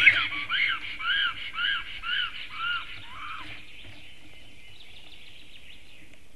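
Black stork calling at the nest: a run of about seven short rising-and-falling notes, roughly two a second, that dies away after about three and a half seconds.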